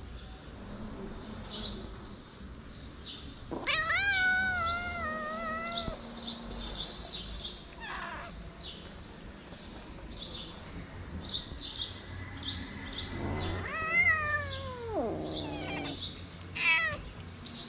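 Calico cat meowing: two long drawn-out meows, the second dropping in pitch as it ends, with a couple of shorter meows between and after. Small birds chirp faintly throughout.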